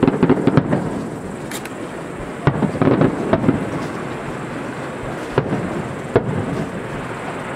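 Aerial firework shells bursting: a quick cluster of bangs at the start, another cluster about two and a half to three and a half seconds in, then single bangs near five and a half and six seconds, with a continuous low rumble between them.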